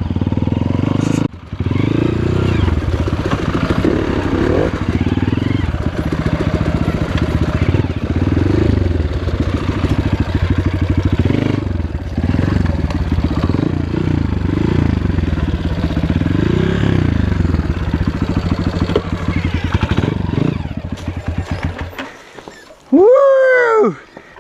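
Off-road motorcycle engine revving up and down again and again as the throttle is worked, dying away about two seconds before the end. Just before the end comes a brief loud note that sweeps up and down.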